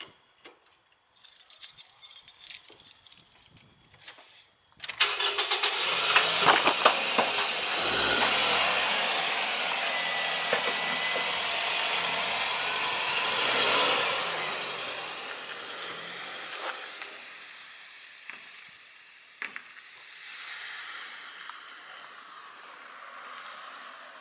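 Keys jangling briefly, then a car engine starting about five seconds in. The car runs and swells in level, then fades steadily away as it drives off.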